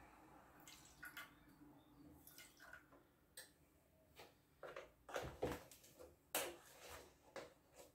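Oat milk pouring from a carton into a saucepan, fading out about half a second in. A series of faint taps and knocks follows, louder near the end, as the carton is handled and set down on the counter.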